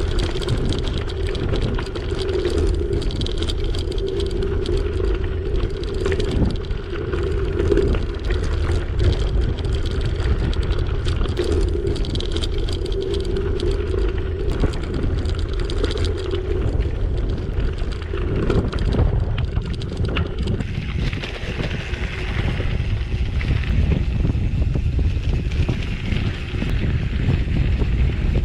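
Gravel bike rolling over a rough dirt track, its tyres crunching and rattling on loose stones, with wind rumbling over an action camera's microphone. A higher hiss comes in after about twenty seconds.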